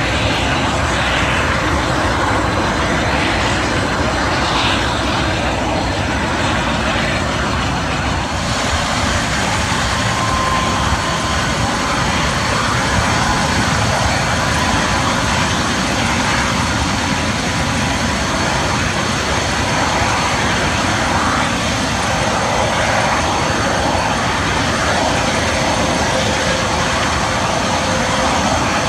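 Mi-26 heavy-lift helicopter running on the ground, its two D-136 turboshaft engines and eight-blade main rotor making a loud, steady noise with a high turbine whine. A further high whine comes in about eight seconds in.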